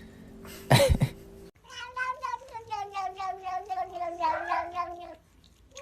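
A cat gives a short, falling cry, then a long, wavering yowl of about three and a half seconds whose pitch sinks slightly toward the end.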